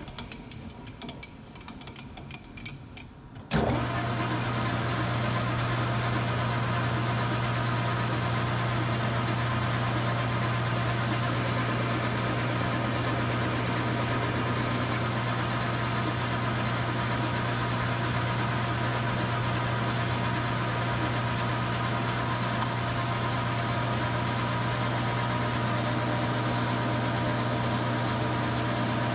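A few light clinks and knocks of metal being handled, then about three and a half seconds in a metal lathe starts and runs steadily, its chuck spinning a TH400 transmission output shaft, a constant motor hum under a steady mechanical hiss.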